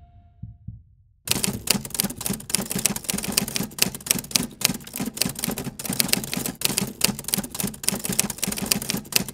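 Fast, irregular clatter of sharp clicks like typewriter or keyboard keys, starting suddenly about a second in. Before it, a fading tail of sound dies away.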